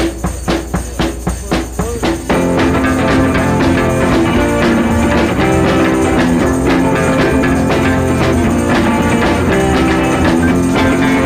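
Upbeat background music: a steady, bouncy beat at first, then about two seconds in a fuller band with guitar and drums comes in and carries on.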